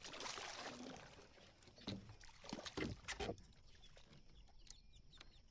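A hooked largemouth bass being fought beside a fishing kayak: a short rush of splashing noise, then a few faint knocks and rattles against the kayak.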